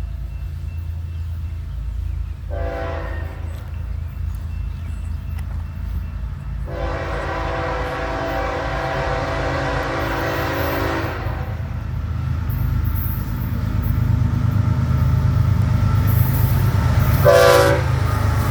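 Air horn on the lead BNSF GE ES44C4 diesel locomotive of a freight train sounds a short blast, then a long blast of about four seconds, then another short blast near the end, as a road-crossing warning. Underneath runs the locomotives' diesel engine rumble, growing louder as the train approaches.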